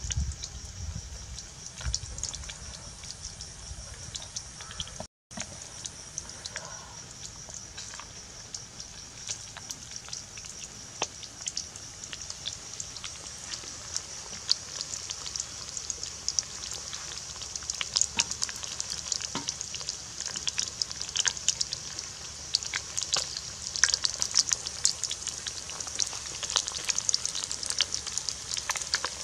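Flour-coated whole fish deep-frying in hot oil in a wok: a steady sizzle full of small pops and crackles that gets busier toward the end. The sound cuts out completely for a moment about five seconds in.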